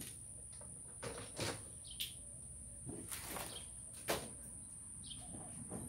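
Scattered light knocks and rustles of objects being handled in a pickup truck bed, with a few short chirps and a steady high-pitched whine in the background.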